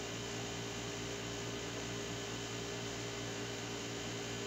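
Steady low hum with an even hiss: room tone with nothing else happening.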